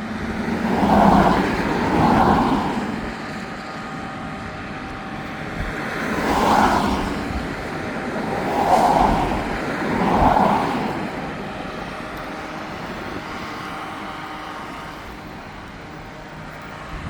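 Road traffic on a highway: five vehicles pass one after another, each swelling and fading within about a second, over a steady background hum.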